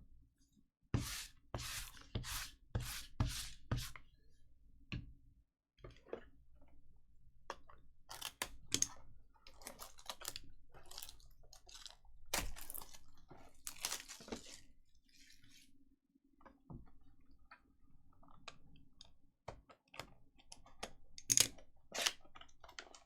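Trading card box and packs being torn open and handled, with crinkling wrapper and paper rips. A quick run of about six rips comes about a second in, followed by scattered rustles and crinkles.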